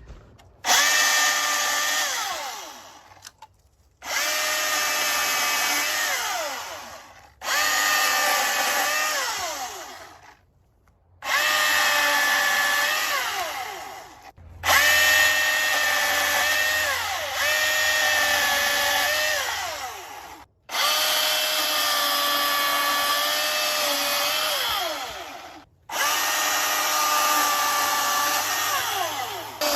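Milwaukee M18 FUEL 16-inch brushless battery chainsaw run in seven bursts of a few seconds each while cutting branch sections. Its whine sags in pitch during each burst and winds down after each trigger release.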